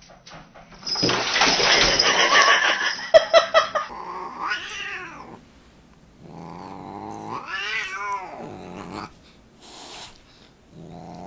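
A loud, rough burst of noise for about three seconds, then a Siamese cat yowling at a dog in two long, wavering cries that rise and fall in pitch, and a short hiss near the end.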